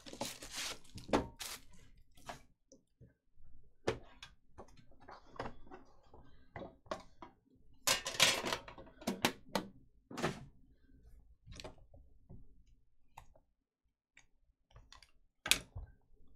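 Handling noises from opening a trading-card box: a metal tin lid lifted off, and a small cardboard card box taken out of a foam insert and handled, with scattered taps, knocks and scraping. There is a longer rustle about eight seconds in and a sharp knock near the end.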